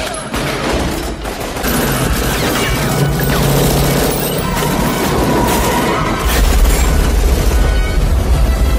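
Action-film soundtrack: orchestral score under gunfire, with a heavy low explosion rumble starting about six seconds in.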